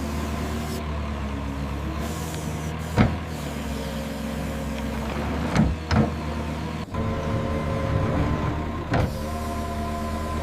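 Excavator engine running steadily, with whining tones that come and go and about four sharp clanks as the bucket digs.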